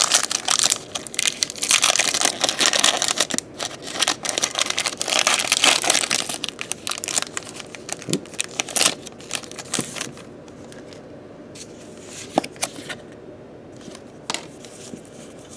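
Foil booster-pack wrapper of a Pokémon trading card pack being torn open and crinkled, a dense crackling for about ten seconds, then quieter with a few light clicks.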